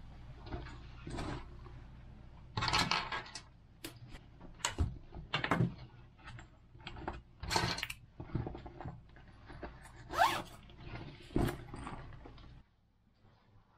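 Belongings being packed into a leather handbag: irregular rustling, knocks and small clicks as things are handled and put in. About ten seconds in, a zip is pulled shut.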